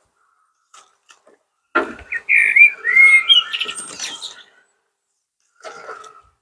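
A songbird singing a phrase of clear, warbling whistled notes for about three seconds, starting about two seconds in. Under it is a soft rustle of compost being scooped and pressed into the basket.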